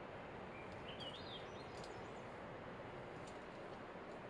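Steady low background noise, with a bird giving a short run of rising chirps about a second in, and a few faint ticks.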